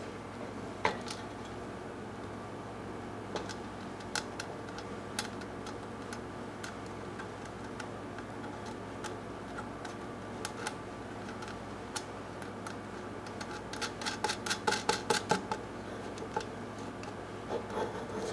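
Scattered light clicks and taps of small parts being handled while a clock is put together, with a quick run of about eight clicks some fourteen seconds in, over a steady electrical hum.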